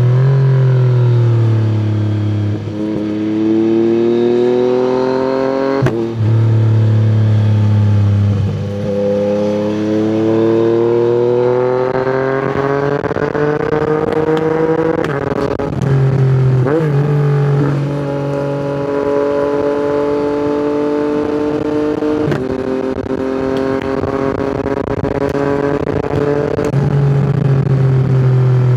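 Yamaha MT-09's three-cylinder engine through an Akrapovič exhaust, heard from the rider's seat on the move: the revs climb and fall again and again, with sudden drops and jumps in pitch and a few sharp cracks along the way.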